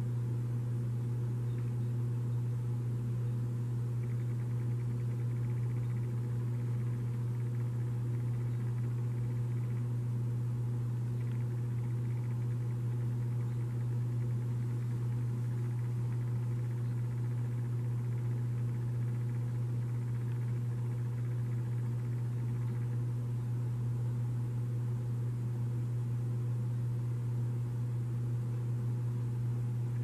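A steady low hum at one unchanging pitch, with a faint hiss above it.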